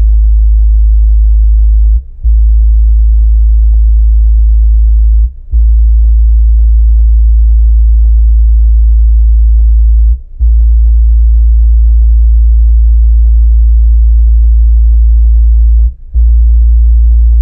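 Kenwood KFC-W112S 12-inch subwoofer in a bass-reflex enclosure playing a loud, steady deep sine test tone at 3 W inside the car, around 52 Hz. The tone breaks off briefly four times as the test frequency is stepped up, with the level rising as it nears the car's 60 Hz peak.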